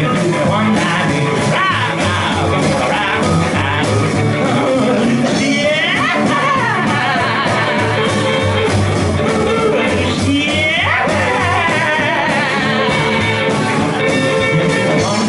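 Live rockabilly band playing: a singer at the microphone strumming an acoustic guitar, with upright bass and electric guitar.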